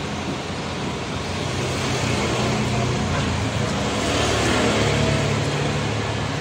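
Outdoor background noise with a motor vehicle's low engine hum, swelling towards the middle and easing off near the end.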